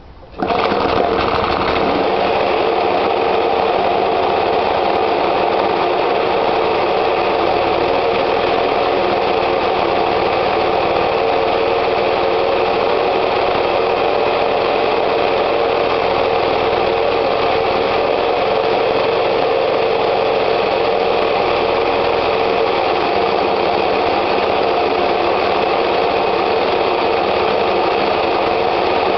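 Qualcast Suffolk Punch 35DL cylinder mower's petrol engine firing on a pull of the recoil starter, catching about half a second in and then running at a steady speed. This is a cold start.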